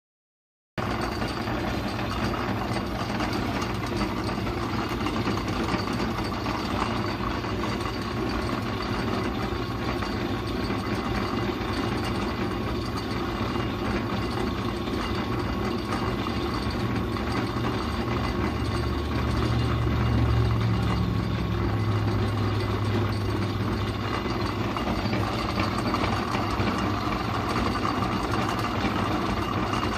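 Metal lathe running steadily, its spindle and gear train turning the chuck, with a lower hum swelling for a few seconds near the middle. The sound starts suddenly just under a second in.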